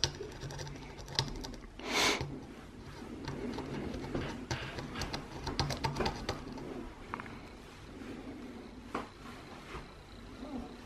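Thin metal tool tip scraping corroded battery contacts on a small plastic battery holder, to clear battery-leak corrosion and bare the metal: faint, irregular scratches and small clicks, with a short hiss about two seconds in.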